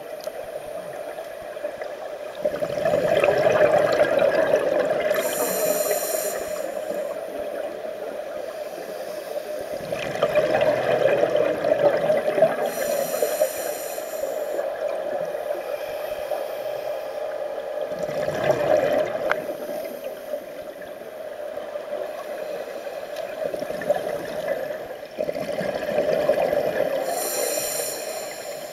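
Scuba diver breathing through a regulator underwater: about four slow breaths, each a rushing, bubbling exhalation with a higher hiss from the regulator.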